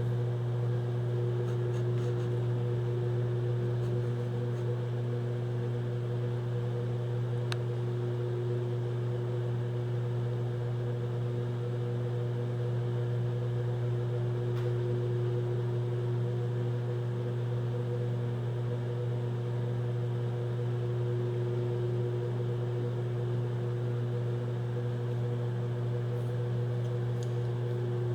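Microwave oven running: a steady electrical hum with its cooling fan, unchanging throughout.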